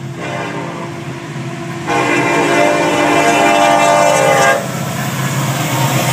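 Florida East Coast Railway diesel locomotive's multi-chime air horn blowing for a grade crossing. It sounds more faintly at first, then a loud sustained blast from about two seconds in cuts off abruptly about four and a half seconds in. Under it a steady low rumble of the approaching train.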